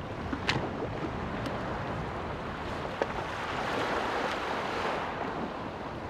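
Steady wind and wave noise on an open beach, with a few short sharp clicks from camera gear being handled, the clearest about half a second in and again about three seconds in.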